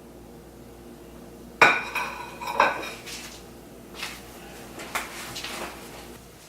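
Kitchenware clattering: a sudden ringing crash about one and a half seconds in, a second crash about a second later, then a few smaller clinks.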